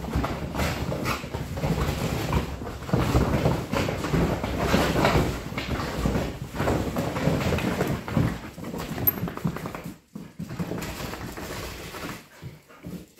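Australian shepherd scrambling about inside a fabric agility tunnel: the stiff tunnel fabric rustles and crinkles under its paws in quick irregular scrabbles. The sound quiets sharply about ten seconds in.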